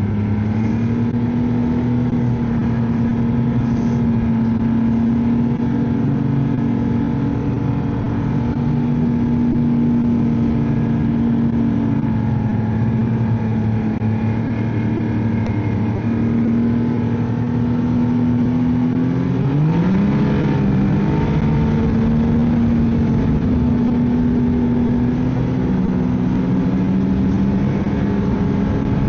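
Ski-Doo snowmobile engine running steadily under way. Its pitch rises about two-thirds of the way through, then settles.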